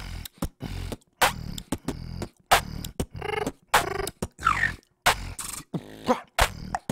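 Human beatboxing right up against a condenser microphone: a quick run of deep kick-drum hits, sharp snare and hi-hat clicks, and a few pitched, bending vocal sounds in the middle and near the end.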